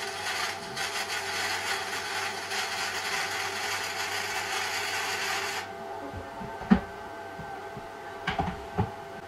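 Gasless flux-cored MIG welding arc from an iBell IGBT inverter welder crackling and hissing steadily on steel plate, stopping suddenly a little past halfway. A steady hum remains, with one sharp knock and then a few lighter knocks near the end.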